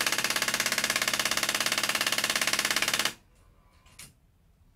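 Front-loading cassette mechanism of a 1985 Hitachi VT-88 VCR knocking very loudly in a rapid, even clatter as it tries to move the cassette housing at power-on, stopping suddenly about three seconds in, with a faint click near four seconds. The clatter is the sign of a slipping gear: the repairer finds the loader's bevel gear skipping.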